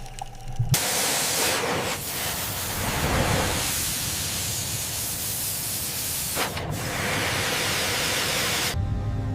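A loud, steady rushing hiss that starts suddenly about a second in, dips briefly after six seconds and cuts off sharply near the end.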